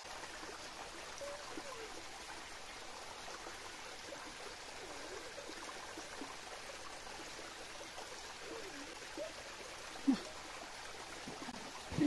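Small waterfall trickling and splashing into a rocky pool, a steady rushing hiss with light gurgles. A single short thump about ten seconds in.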